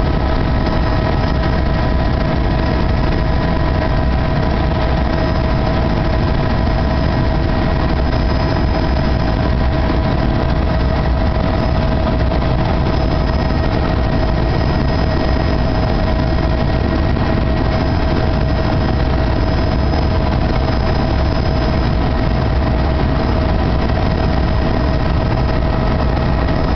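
Helicopter running steadily: a constant low rumble with several steady whining tones over it, unchanging throughout.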